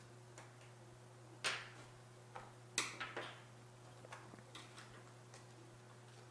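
Sharp clicks and lighter ticks as the spring clips of a laptop's SO-DIMM RAM slot are pushed outward and the memory module is unhooked and lifted out. The two loudest clicks come about a second and a half and about three seconds in.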